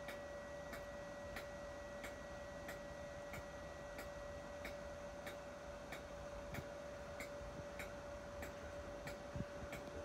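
Steady, even ticking, about three ticks every two seconds, over a constant faint high-pitched hum.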